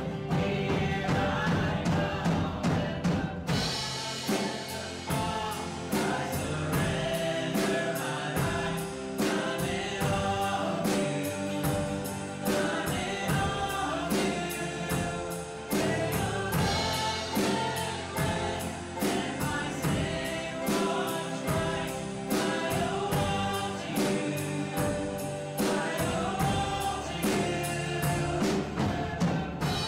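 Small church praise band playing a worship song: several voices singing together over a drum kit, acoustic guitar and piano, with a steady beat.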